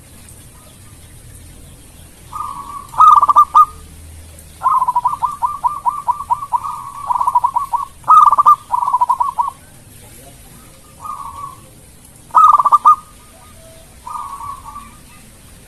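Zebra dove (perkutut) song: phrases of quick, staccato coos, five bouts in all. The longest is a rolling run of a dozen or more fast notes that starts about five seconds in and lasts some four seconds; the others are short.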